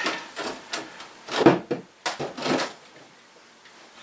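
Computer motherboards being slid and stacked on a cupboard shelf: a few irregular knocks and scrapes, the loudest about a second and a half in.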